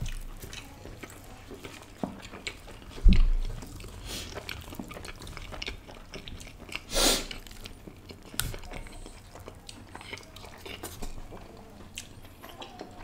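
Close-miked chewing and mouth sounds of people eating soft naan bread with curry, with scattered small wet clicks. A low thump comes about three seconds in, and a louder short noisy burst about seven seconds in.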